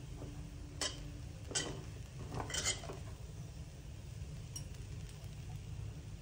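Metal slotted spoon scraping and clinking against a pressure cooker pot while stirring cooked rice, with a few sharp clinks in the first three seconds. A steady low hum runs underneath.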